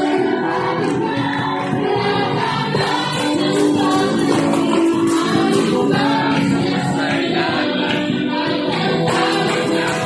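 Congregation and worship team singing a praise song together, with steady instrumental backing.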